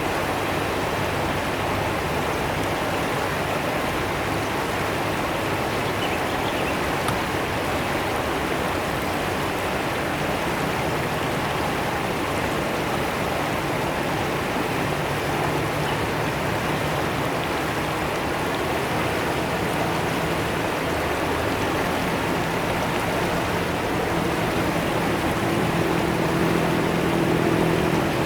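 Fast-flowing river water rushing and splashing in a steady, dense stream. A faint low hum comes in partway through and is strongest near the end.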